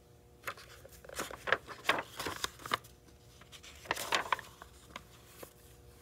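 Hardcover picture book being opened and its pages turned: a run of paper rustles and flaps over the first few seconds, then another brief rustle about four seconds in.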